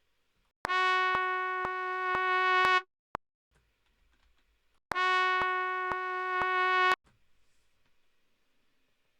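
Synthesized brass-like tone from a DAW holding one note for about two seconds, played twice with a pause between, a sharp click about twice a second through each playback. A single click sounds between the two notes.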